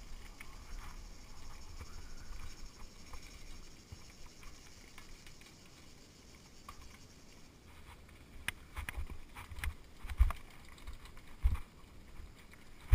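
Mountain bike riding over a rough dirt singletrack. A faint steady hiss runs through the first half; from about eight seconds in the bike rattles and clunks over bumps, with two loud knocks.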